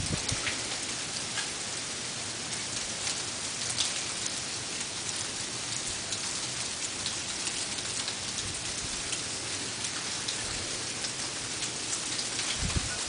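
Sleet falling: a steady hiss of ice pellets with many small ticks as they strike surfaces.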